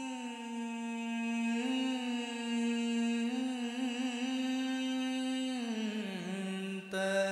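A lone voice singing the slow, drawn-out Arabic chant of a Duff muttu performance, unaccompanied: one long held note with slight wavering and small steps up in pitch, sliding down about six seconds in, then a new phrase starting just before the end.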